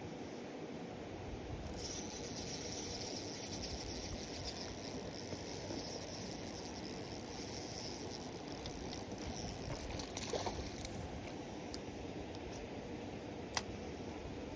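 Steady outdoor background noise. A high, finely textured hiss runs from about two seconds in until about nine seconds, and a single sharp click comes near the end.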